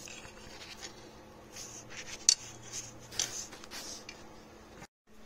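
Light metallic clinks and rubbing from a hand tool working a bolt loose beside a car's transmission, with two sharper clicks about two and three seconds in.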